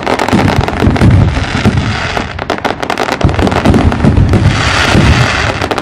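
Fireworks going off in a loud, dense barrage: many sharp cracks and crackles in quick succession over deep booms, with no break.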